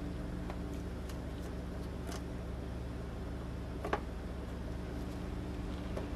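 A few light clicks from a plastic trim tool prying at the Toyota Tundra's fog light bezel and its clips, the sharpest about four seconds in, over a steady low hum.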